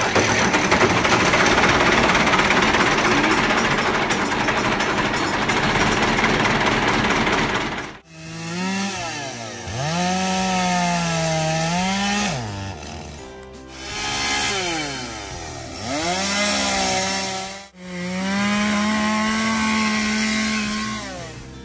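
A loud, steady noise for about the first eight seconds. Then a two-stroke chainsaw revs up and drops back toward idle four times as it cuts through saplings and brush.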